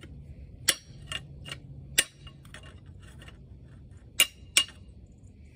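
Sharp metal-on-metal taps and clinks of a hand tool striking parts of a Wisconsin V4 engine: several lighter strikes in the first two seconds, then two loud ringing ones close together about four seconds in.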